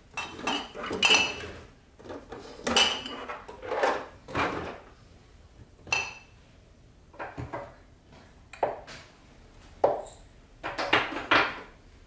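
Glass spice jars clinking and knocking against each other and the shelf as they are shifted around and lifted out, in about eight separate clusters of clinks, some with a short glassy ring.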